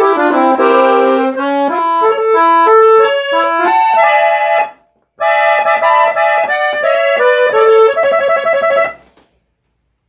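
Sano double-cassotto piano accordion with wooden resonance blocks, played on the treble keyboard: quick melodic phrases of several notes at once. The playing breaks off briefly about five seconds in and stops near the end.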